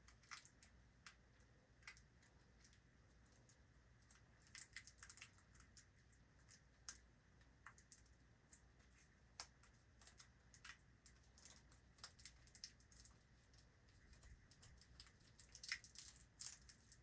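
Near silence with faint handling noises: scattered light clicks and crinkles, thickest in clusters around the middle and near the end.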